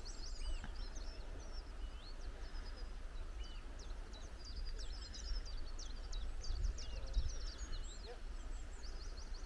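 Small songbirds chirping and twittering in quick runs of short high notes, some swooping up or down, over a steady low rumble.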